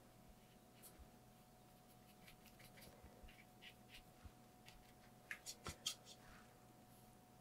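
Near silence with faint scratching of a paintbrush on watercolour paper, and four quick light clicks about five seconds in.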